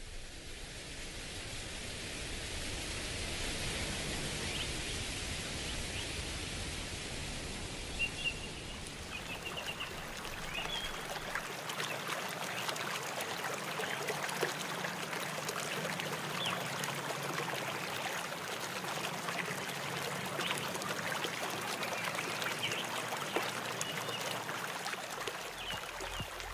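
Steady rushing and trickling of running water, fading in at the start, with a few short high chirps.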